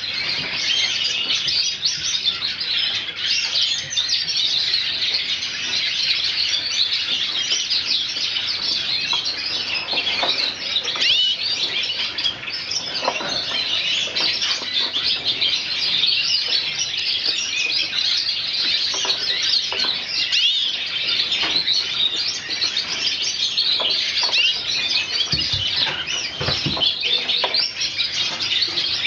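Small cage birds chirping and twittering without a break, many short high calls overlapping, with a couple of low thumps near the end.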